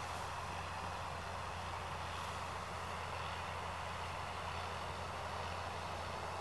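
Steady background noise with a constant low hum underneath, no distinct events.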